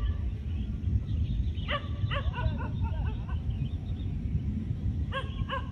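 Deep, continuous rumble of Mount Sinabung erupting, a steady low roar like the sound of an aircraft. Short, high yelping calls come about two seconds in and again near the end.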